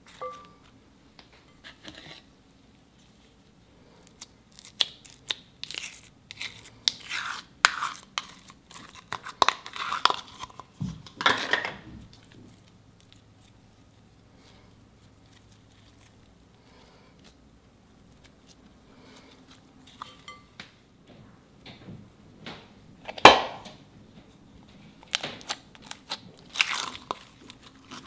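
Hands squishing, pressing and stretching slime over small foam beads, giving irregular squelching crackles and pops in bursts. There are busy stretches about 4 to 12 seconds in and again from about 22 seconds, with a loud snap around 23 seconds and a quieter pause between.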